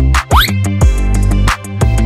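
Background music with a steady beat and a quick rising sweep near the start.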